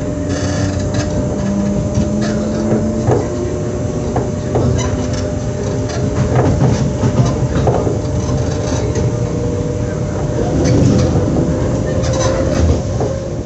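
Stationary SNCF Z 20500-class double-deck electric multiple unit humming steadily at the platform: one high, even tone over lower tones that shift in pitch, with scattered clicks and knocks.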